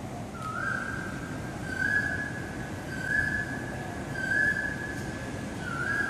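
A bird whistling the same clear note five times, about once every second and a bit, each note stepping up slightly in pitch. A steady background hiss runs underneath.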